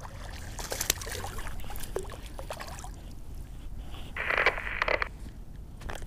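Small largemouth bass splashing at the pond's surface as it is swung out of the water on the line, followed by rustling and scraping as it is handled. A louder rushing burst comes about four seconds in.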